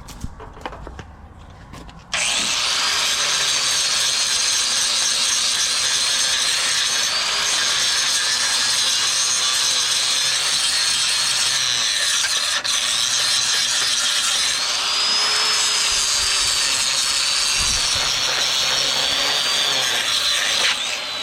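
Handheld power tool running under load on the steel repair, a loud steady rasp with a high whine that sags and rises. It starts about two seconds in and runs almost to the end.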